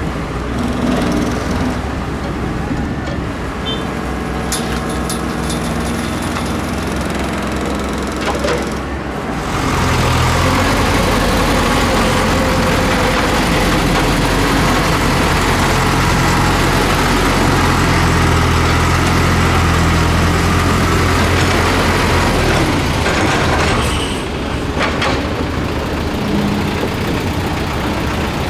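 Diesel engine of a Doosan Solar130W-V wheeled excavator running as it loads sand into a dump truck, with a few sharp knocks in the first nine seconds. After that comes a louder, steady diesel engine of the loaded Dongfeng Truong Giang dump truck as it drives off.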